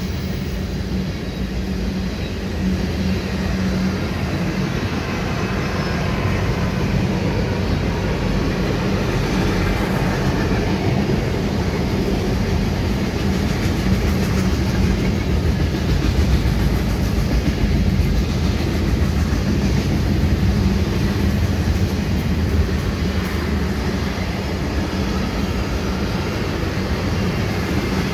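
Freight train cars rolling past at close range: a steady, loud rumble of steel wheels on the rails that runs without a break.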